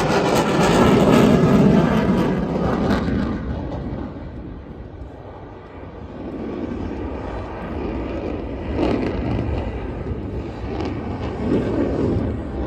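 Aircraft engine noise from a plane flying past. It is loud at first, dies away about four seconds in, then builds again with swells near the end.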